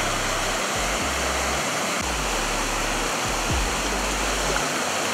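River floodwater rushing and churning over a washed-out road embankment: a steady rush of water.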